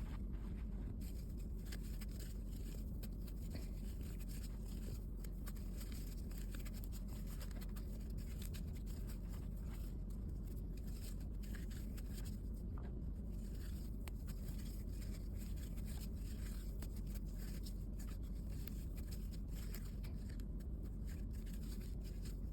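Faint scraping and light ticking of a crochet hook working t-shirt yarn, over a steady low hum.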